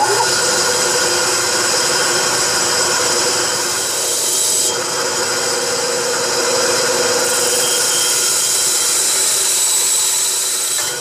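Benchtop bandsaw running steadily while cutting through the diecast metal frame of a 1:64 scale toy truck.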